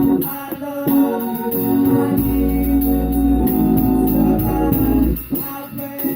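Organ playing gospel music in held chords, with a deep bass note sounding from about two seconds in to about five seconds.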